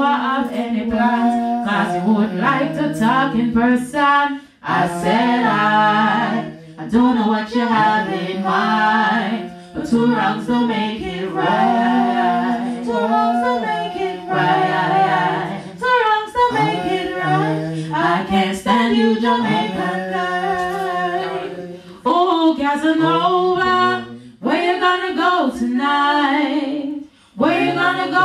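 A woman singing a cappella with no instruments, in sung phrases a few seconds long separated by short breaths.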